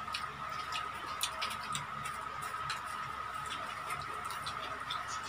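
Crispy fried chicken being torn apart by hand and chewed: scattered small crackly clicks. A steady high-pitched whine runs under them.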